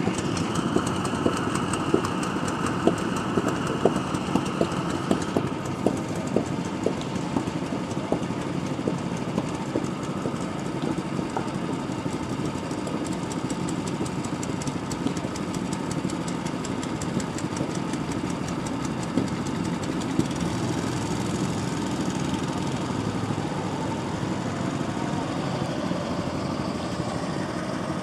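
Small gasoline go-kart engines idling and running, a steady mechanical drone with a run of sharp clicks through the first several seconds.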